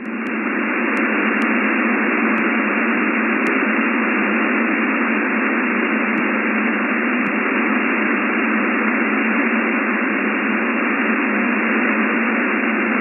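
Shortwave receiver hissing steadily on an HF single-sideband air-traffic control channel with no one transmitting: open-channel static, thin and narrow like a telephone line.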